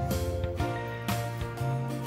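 Instrumental background music: a gentle tune with a new note or chord about every half second.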